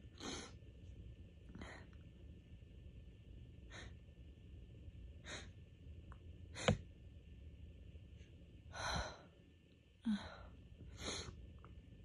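Allergy sneezing fit: a run of short sniffs and catching, gasping breaths roughly every second or two as sneezes build, with the loudest, sharpest burst about six and a half seconds in.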